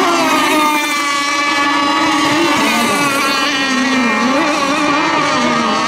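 Radio-controlled racing boats running at speed, their motors making a loud, high whine whose pitch wavers and dips a few times, around the middle and again near the end.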